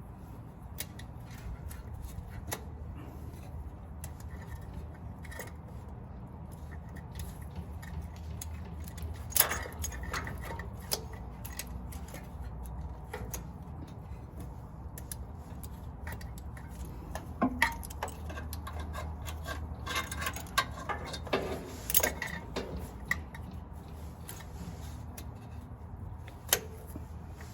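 Scattered metallic clinks and knocks of hand tools, with clusters of clatter about a third of the way in and again in the second half, over a steady low hum. Locking pliers (vice grip) being worked on the oil filter to loosen it.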